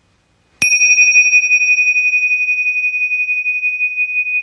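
A small bell struck once about half a second in, then ringing on in one steady high tone with a slight waver, hardly fading, until it cuts off suddenly near the end.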